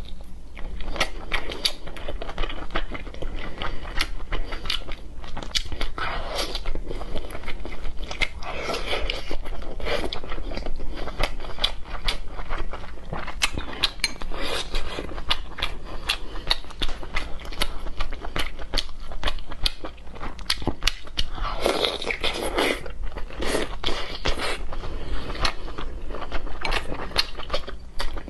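Close-miked chewing and biting of sauce-dipped pork intestine, a dense run of wet mouth clicks and smacks.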